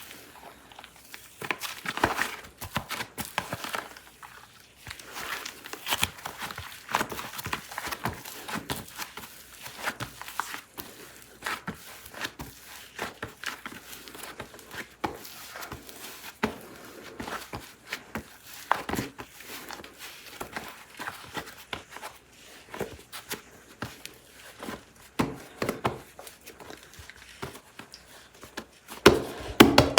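Plastic clay packaging crinkling and tearing as it is opened by hand, with irregular rustles and light clicks. The handling gets louder near the end.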